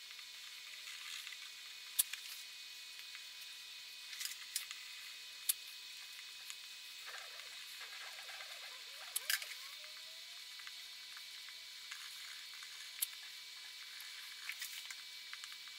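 Hot wire tip of a pyrography pen scorching wood: a faint steady hiss with scattered sharp crackles.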